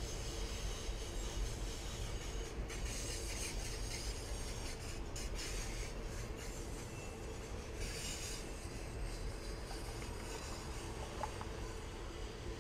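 Freight train cars rolling past at steady speed: a continuous low rumble of steel wheels on the rails, with a scraping hiss from the wheels that swells now and then.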